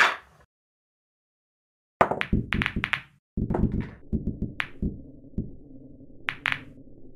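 Pool game break-shot sound effects: about two seconds in, a sharp clatter of billiard balls colliding, then more clacks and a low rolling rumble as the balls run across the table. Two sharp clicks come near the end as balls hit each other or drop into pockets.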